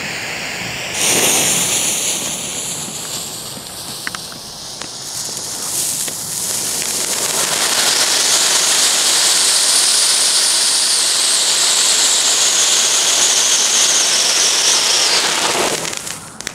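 A jet-flame lighter hisses at the fuse. About a second in, a small firework fountain catches and sprays sparks with a steady hissing rush. The rush swells over several seconds and dies away just before the end.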